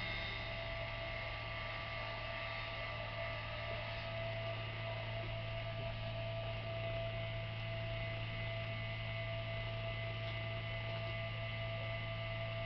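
Steady electrical hum, with a low drone and a few thin high tones held unchanged throughout.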